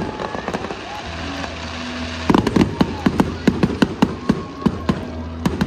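Fireworks display: a string of sharp bangs and crackles from bursting shells, densest about two seconds in.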